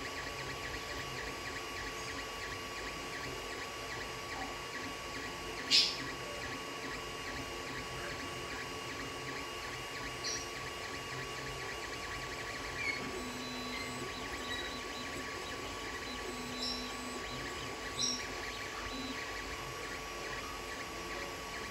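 Creality Ender 3 3D printer printing: its cooling fans run with a steady hum and tone, while the stepper motors whir in short changing runs as the print head moves. A sharp click comes about six seconds in, and a few fainter short high ticks follow later.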